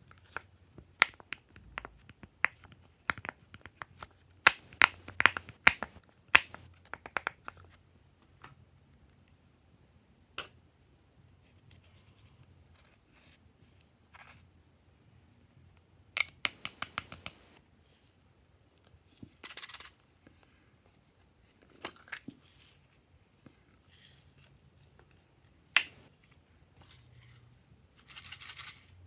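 Silicone pop-it fidget toy being pressed: a quick run of sharp pops through the first several seconds. Later come scattered clicks and short scratchy scraping as eyeshadow is scraped out of a plastic palette, and a brief soft crinkly squish near the end.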